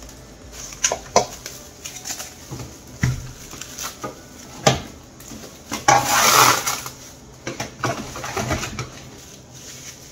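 Plastic cling wrap being pulled off its roll and stretched crinkling over a stainless steel mixing bowl, with a longer, louder rustle about six seconds in. Light knocks of the bowl being handled come in between.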